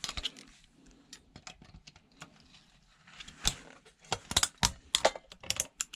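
Small sharp clicks and taps of hard plastic and metal as an electronic relay is worked apart by hand, scattered at first and then a quick run of clicks in the last two seconds.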